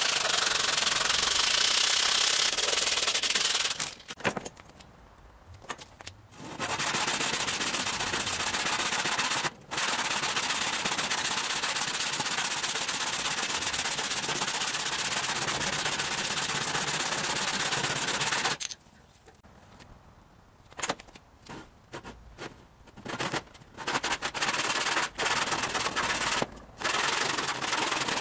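Sandpaper rubbing along a wooden rod, then a handsaw cutting a round slice off the rod in a long, unbroken run of strokes. After a pause, shorter bursts of sawing follow with breaks between them.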